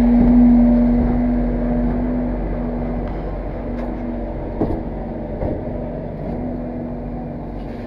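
Scania truck engine running steadily while its walking-floor trailer discharges its load onto a pile, with a strong steady hum that slowly gets quieter. A few faint knocks come in about halfway through.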